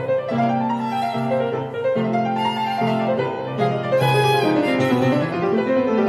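Instrumental background music, a bowed-string melody over piano, with runs of notes rising and falling.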